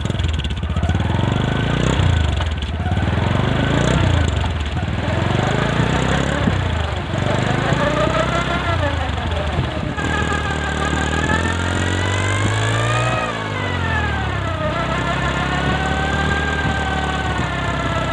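Motorcycle engine running in gear with the bike on its stand, spinning the rear wheel and a fan blade rigged to it. The revs rise and fall slowly several times, with a whining tone over the engine's steady drone.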